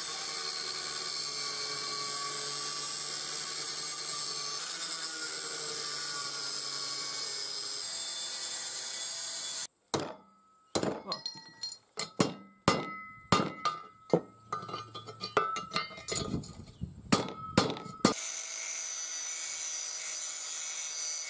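Angle grinder with a cutting disc slicing through mild-steel box section, a steady high grinding hiss that stops suddenly about ten seconds in. Then about fifteen sharp metallic knocks, each ringing, spread over some eight seconds, before an angle grinder runs steadily again against the drill press's cast head near the end.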